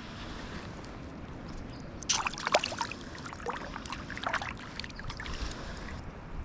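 River water running steadily, with a cluster of irregular sharp clicks and splashy crackles from about two to five seconds in.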